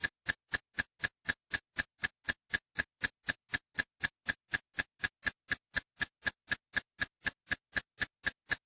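Steady, even ticking: sharp clicks about four a second with silence between them.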